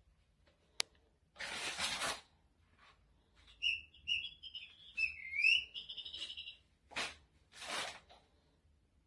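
Electronic squeaking-mouse sound from an interactive cat toy: a run of high, gliding chirpy squeaks lasting about three seconds. Before and after it come short bursts of hissy noise, and a sharp click sounds near the start.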